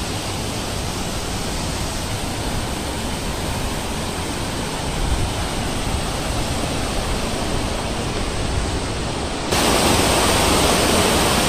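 Steady rushing noise that suddenly steps up louder and brighter about nine and a half seconds in.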